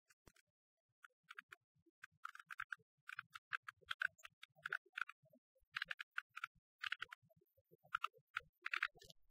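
Faint, irregular clicking, several sharp clicks a second, beginning about a second in.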